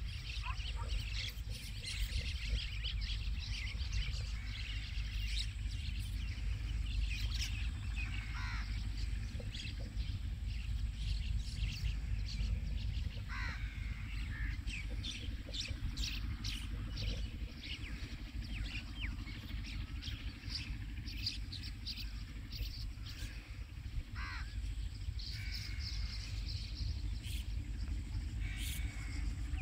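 Birds calling and chirping throughout, with several clear whistled calls that fall in pitch, over a steady low rumble.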